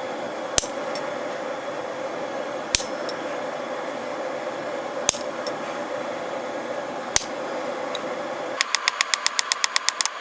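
Gas forge burner running with a steady rushing noise while a hammer strikes metal on an anvil four times, about two seconds apart, each blow followed by a light rebound tick. Near the end the burner noise stops and a fast run of light, even taps begins, about five a second.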